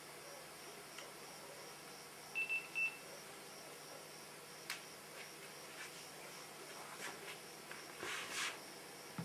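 Two short, high electronic beeps about half a second apart over a faint steady hiss, followed later by a few faint clicks and a brief rustle near the end.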